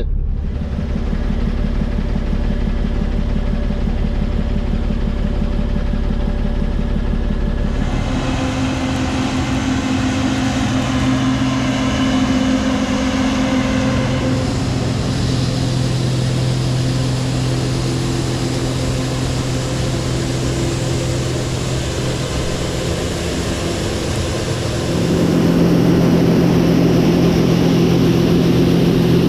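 Grain truck engine idling with a steady low chug. About eight seconds in it changes to a fuller engine sound with a steady hum, and near the end it steps up louder.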